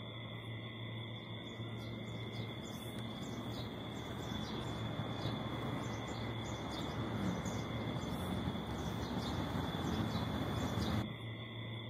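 A rushing hiss with scattered short crackles swells slowly and cuts off suddenly near the end. Under it run a steady low hum and a thin high whine.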